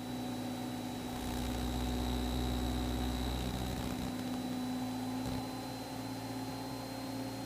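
Cessna 172R's four-cylinder Lycoming engine and propeller droning steadily in cruise climb, heard in the cockpit with a thin steady high whine over it. A low rumble swells for a few seconds, then eases off.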